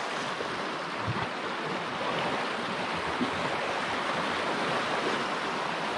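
Fast river current rushing over a rocky riffle, a steady, even rush of water.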